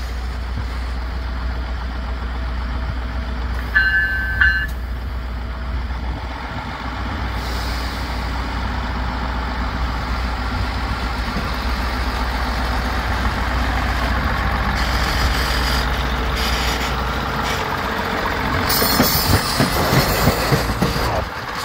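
Budd RDC self-propelled diesel railcar running steadily at low speed as it rolls past, with a low engine hum under it. A brief high beep sounds about four seconds in, and the running noise grows louder near the end as the car moves off.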